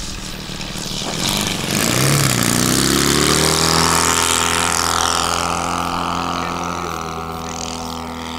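Radio-controlled Cub-type model airplane making a low pass: its motor and propeller grow loud about two seconds in as it flies by, then fade as it climbs away.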